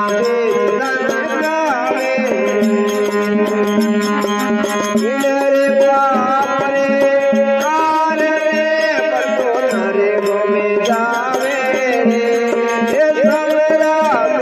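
Hindi devotional bhajan music: tabla keeping the rhythm under a gliding, ornamented melody line over a steady drone.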